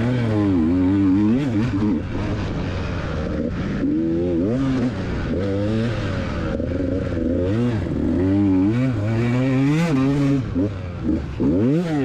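KTM EXC 125 two-stroke dirt bike engine under hard riding, its pitch repeatedly rising and falling as the throttle is opened and closed. About eleven seconds in, it drops sharply and then climbs fast again.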